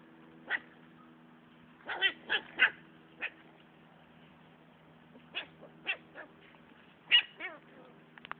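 Siberian husky puppies fighting, giving short, high yips and barks in scattered bursts, with a quick run of three about two seconds in and a few that drop in pitch near the end.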